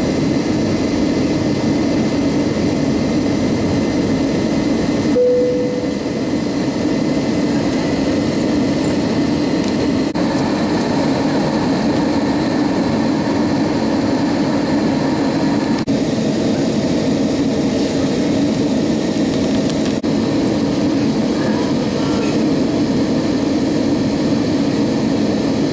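Steady cabin rumble of an Airbus A320-232 in flight: its IAE V2500 engines and the airflow, heard from a window seat beside the engine. A brief single tone sounds about five seconds in.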